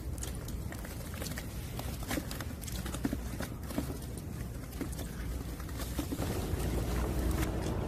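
Scattered light clicks and knocks of boots stepping on wet shore stones and of plastic tubs and gear being handled, over a low steady rumble.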